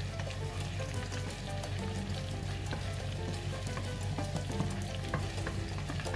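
Marinated chicken pieces and chopped onion sizzling in a frying pan, with many small crackling pops, as a wooden spatula stirs them.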